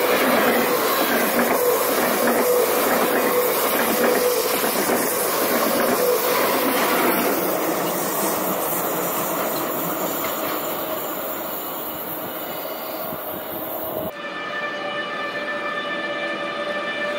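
A train running along the track, its noise slowly fading as it moves away. About three-quarters of the way through, the sound changes abruptly to a steady sound made of several held tones.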